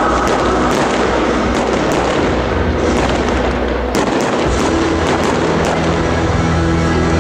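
Aerial firework shells bursting in quick succession, a dense run of bangs and crackle.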